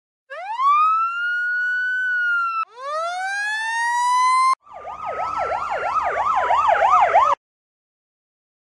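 Emergency vehicle siren sound effects spliced together: two wails that rise in pitch and hold, each cut off abruptly, then a fast yelp siren over a slowly falling tone that stops suddenly about seven seconds in.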